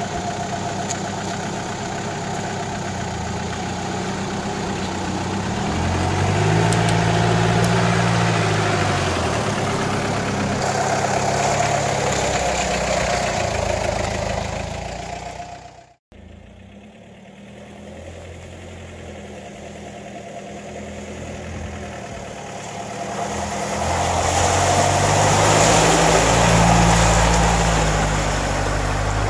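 1989 Mitsubishi Pajero's engine revving up and easing off as the 4x4 pushes through deep mud and water, with the tyres splashing and churning. The engine note climbs and falls twice, with a sudden break about halfway through.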